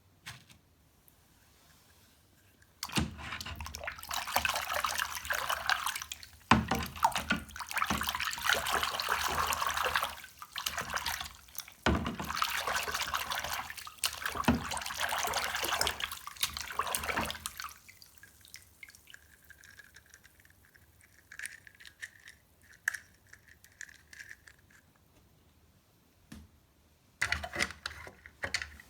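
Tap water running and splashing as small toy cars are rinsed under it, in long stretches with short breaks, stopping a few seconds after the middle and coming on again briefly near the end.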